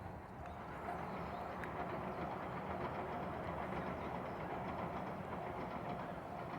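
A train passing over a Japanese railway level crossing, its running noise steady, while the crossing's warning bell rings in an even, repeating pattern.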